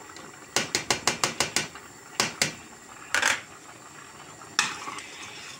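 Kitchenware clattering as chopped garlic is tipped from a bowl into a steel pot of boiling tomato sauce: a quick run of about eight sharp taps, two more a moment later, then two short scrapes.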